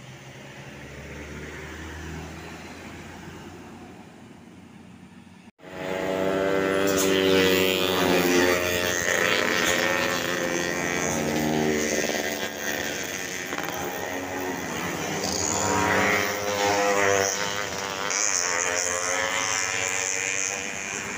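Diesel engine of a loaded cargo truck passing close by, loud, its pitch rising and falling. Before that, a quieter vehicle engine hum, cut off abruptly about five and a half seconds in.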